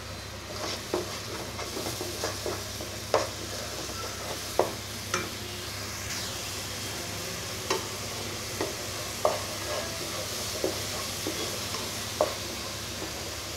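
Ground shallot, garlic, ginger and dried-chilli paste sizzling in oil in a kadai. It is stirred with a wooden spatula that scrapes and knocks against the pan at irregular moments, about a dozen sharp taps in all. This is the stage where the paste is fried until its raw smell is gone.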